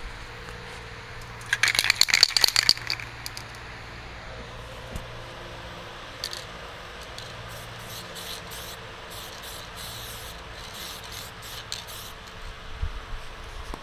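Aerosol spray-paint can shaken hard, its mixing ball rattling rapidly about two seconds in; later a run of short hissing spray bursts against a cardboard stencil.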